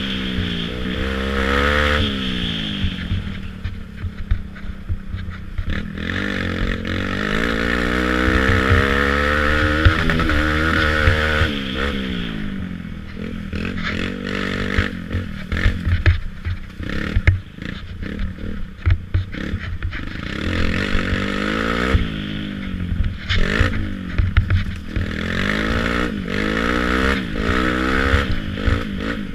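Youth ATV engine heard from on board, revving up and dropping back again and again as the throttle is worked. Knocks and rattles from the machine bouncing over rough ground come through, thickest in the middle and again near the end.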